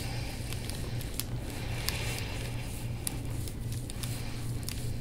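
Soft rubbing and scattered small clicks of hands doing massage work on skin, over a steady low hum.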